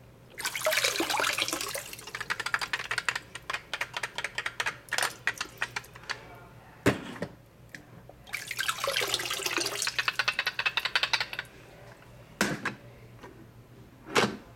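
Water splashing and sloshing in a stainless-steel kitchen sink as a hand pushes a plastic toy ship under, in two bursts, with spattering drips between them and a few sharp knocks.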